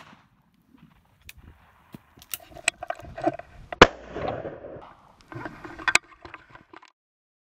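Two shotgun shots at a flying pheasant, the first about four seconds in and the second, a little quieter, about two seconds later.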